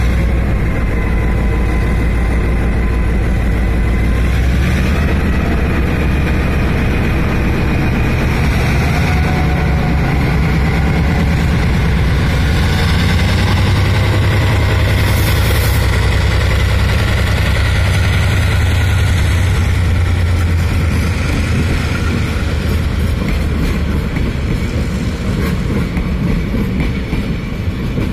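Diesel locomotive R155's engine running with a loud, deep drone during shunting. The engine note rises and strengthens about four seconds in, holds through the middle, then eases off slightly near the end.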